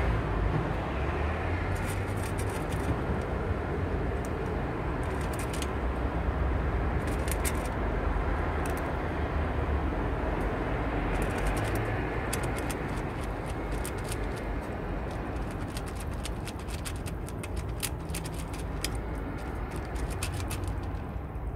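A cat licking and chewing a puree treat off a metal feeding tray close by: runs of small wet clicks, sparse at first and coming thick and fast for the last several seconds, over a steady low rumble in the background.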